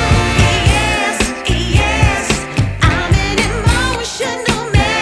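Background music: a pop or soul song with a singing voice over a steady beat.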